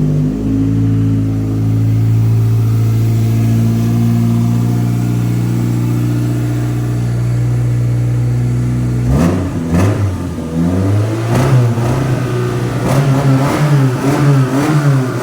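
Car engine running steadily in neutral for about nine seconds, then blipped on the throttle several times, its pitch rising and falling with each rev.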